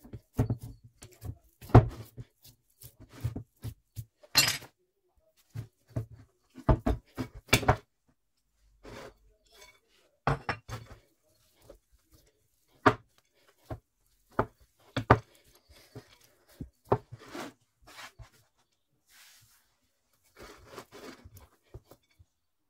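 Hands working date paste and chopped walnuts against a ceramic plate: irregular taps, soft thumps and light clinks on the plate, with a short scrape about four seconds in.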